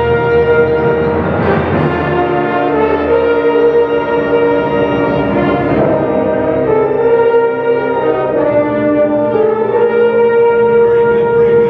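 Wind band playing slow, sustained full chords, brass to the fore with a horn-like note held above them. The chords move every second or two at a steady loud level, ringing in the auditorium.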